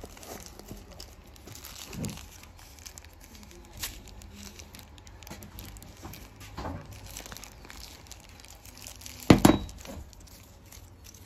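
Soft white protective wrapping crinkled and pulled off a small metal camera-gimbal bracket by hand: scattered rustling, with one louder crunch about nine and a half seconds in.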